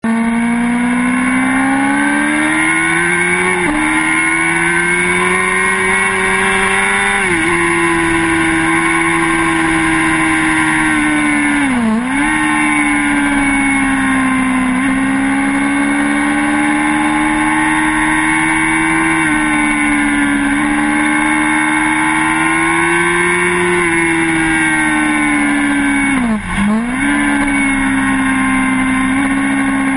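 Suzuki GSX-R750's inline-four engine at high revs on a circuit, heard through an on-board camera. The pitch climbs slowly and steps down with upshifts about 3.5 and 7 seconds in. Twice, near 12 seconds and again late on, the revs dip sharply and climb back.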